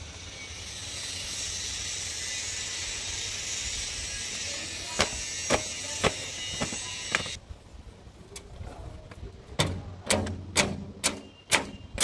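A cloth rubbing and slapping against the painted steel bodywork of a JCB 3DX backhoe loader as it is wiped down. A steady hiss with light clicks stops abruptly about seven seconds in, then comes a run of sharp slaps about twice a second.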